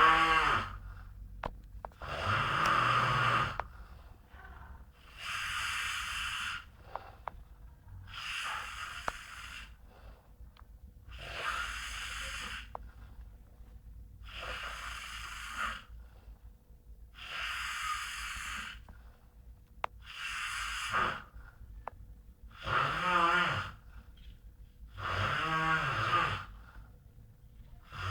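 A man snoring in his sleep: about ten noisy breaths at a steady pace, one every two and a half to three seconds. Several of them carry a low vibrating buzz.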